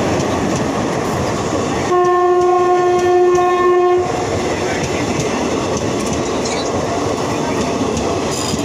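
Indian Railways electric locomotive and its express coaches rolling past close by as the train pulls in, a steady dense rumble of wheels on rail. About two seconds in, the train horn sounds one steady blast lasting about two seconds.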